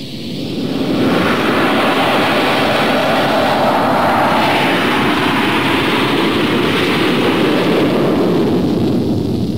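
Panavia Tornado's twin jet engines at full afterburner on a take-off run: a loud, steady jet roar that builds over the first second and eases off at the very end.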